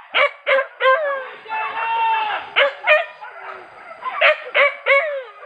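Boar-hunting dogs yelping and baying in a string of short, high cries that each drop in pitch, with one longer drawn-out cry about a second and a half in.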